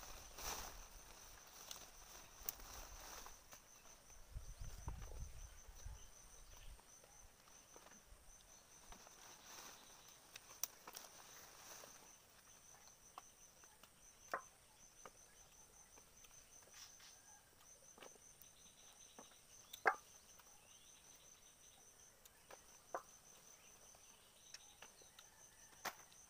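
Faint forest ambience: an insect calling in a steady, high, rapidly pulsing trill, with a few sharp clicks or snaps scattered through it and a brief low rumble a few seconds in.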